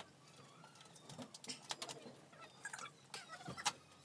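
Scattered light knocks and taps from timber battens and foilboard being handled on a van's bare metal floor, mixed with short faint chirping or squeaking sounds.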